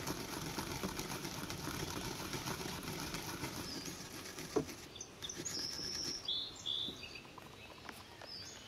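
A garlic clove rubbed quickly up and down a stainless steel box grater, a fast rasping scrape of many short strokes that stops about five seconds in. A few short bird chirps follow.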